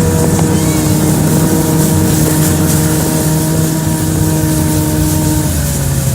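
Snowmobile engine running at a steady speed, its pitch easing down slightly near the end.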